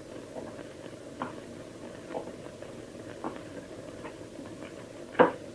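A few faint, scattered knocks over a steady low hiss, with one sharper knock near the end.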